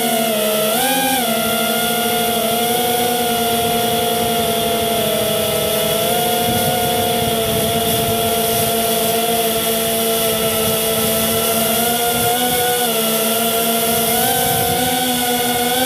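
FPV quadcopter's electric motors and propellers whining steadily; the pitch rises briefly about a second in and shifts slightly with throttle later on.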